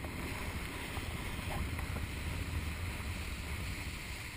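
Steady rushing noise of a wakeboard being towed across the water behind a motorboat: wind buffeting the camera's microphone as a low rumble, over the hiss of spray under the board.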